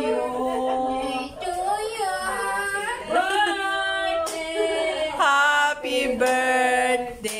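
Women's voices singing, with long held, wavering notes.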